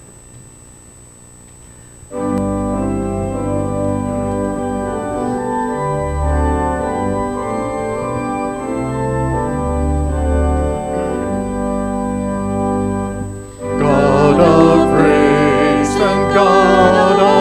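Keyboard accompaniment starting about two seconds in with sustained, organ-like chords held a second or two each. About fourteen seconds in, a woman's and a man's voice join, singing over it, louder.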